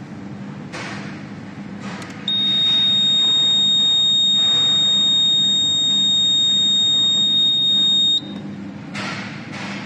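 A fire alarm control panel's trouble buzzer sounds a loud, steady, high-pitched beep for about six seconds, then cuts off suddenly. It signals a trouble condition: a ground (earth) fault on the panel. A few light handling knocks come before it.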